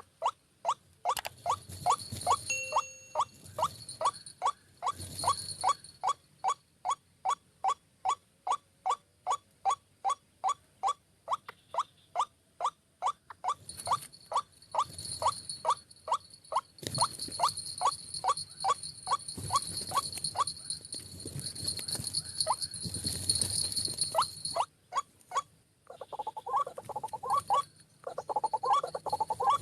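White-breasted waterhen (ruak-ruak) calling, a long run of short clipped notes repeated about twice a second that stops near the end, followed by a denser chattering of calls. Steady high insect-like buzzing runs underneath.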